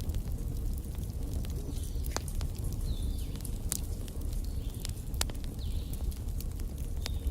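Wood fire burning in a fireplace: irregular crackles and sharp pops over a steady low rumble of the flames.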